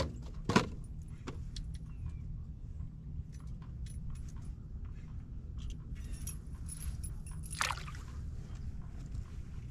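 Clicks and knocks of fishing tackle and gear being handled in an aluminum boat: a sharp knock at the start and another about half a second later, then scattered faint clinks and a short rustle near the end, over a steady low rumble.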